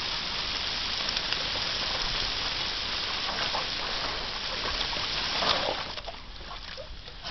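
Garden hose spraying water in a steady hiss with splashing; after a louder splash about five and a half seconds in, the spray quietens.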